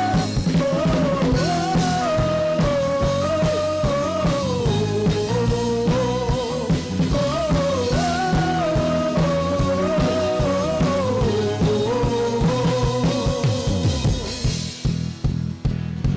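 A band playing a rock-style worship song: a lead melody line wandering over bass and drums. The band thins out near the end.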